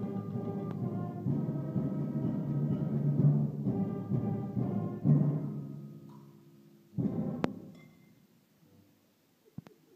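A brass band with trombones playing together with pots and kitchen utensils struck as percussion. The piece ends: the music dies away about five to six seconds in, and a final short, loud struck hit comes about seven seconds in.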